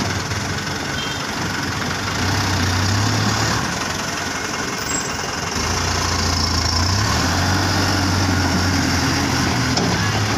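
Toyota Dyna 130HT dump truck's diesel engine pulling at low speed as the truck crawls over soft, loose sand-and-gravel fill. The engine note swells about two seconds in and again from about halfway on.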